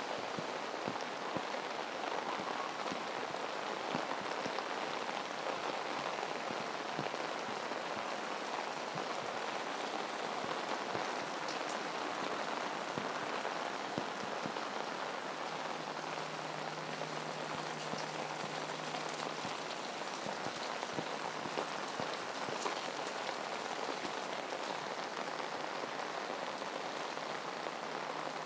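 Heavy tropical rain falling steadily, a dense hiss scattered with sharp ticks of individual drops. A faint low hum sits under it for a few seconds just past the middle.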